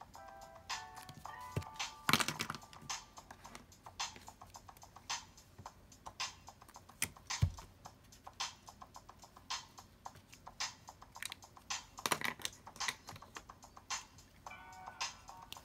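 Irregular sharp clicks, about two a second, with one dull thump midway. Short runs of musical tones sound in the first second or so and again near the end.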